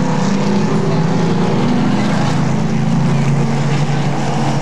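Super late model stock cars' V8 engines running on the track in a loud, steady drone, their pitch dipping slightly past the middle.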